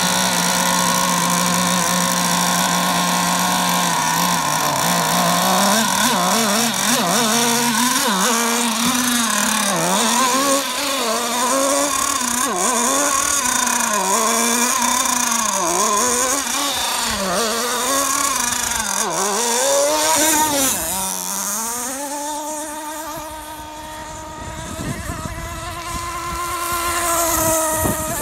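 CMB .45 two-stroke glow (nitro) engine with tuned pipe in an RC outrigger racing boat. It runs at a steady high idle, then is revved up and down about once a second. After a brief dip the pitch climbs and holds as the boat runs at speed on the water, growing louder near the end.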